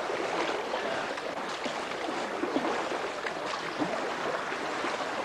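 Paddles dipping and splashing and water sloshing around inflatable dinghies being rowed through floodwater: a steady wash of water noise with many small irregular splashes.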